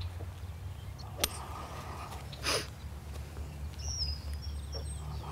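Quiet outdoor ambience with a steady low hum, a single sharp click about a second in, and a brief bird chirp near the end.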